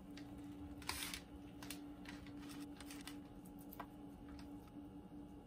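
Faint soft scraping and small clicks of a red plastic quarter-cup measuring cup being pressed into raw ground beef and the portion turned out by hand, with a short louder rustle about a second in. A steady low hum runs underneath.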